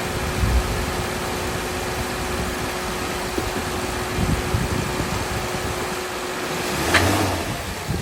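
Honda Accord 3.5-litre V6 idling with a steady hum and a constant tone over it. A little before seven seconds in the tone cuts out with a short clunk-like burst of noise. The owner suspects worn motor mounts of causing a vibration at idle.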